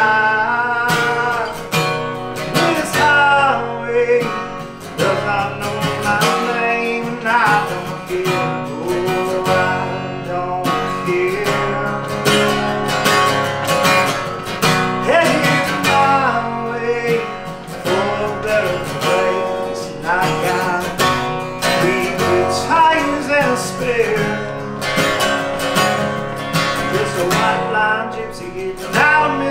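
A man singing a slow song while strumming a steel-string acoustic guitar.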